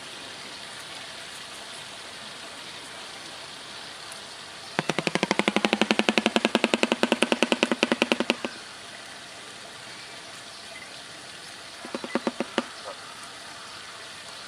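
Shoebill clattering its bill: the upper and lower jaws clap together in a rapid, even rattle of hollow knocks, about nine a second for nearly four seconds, like a machine gun. A second short burst of a few claps follows about twelve seconds in.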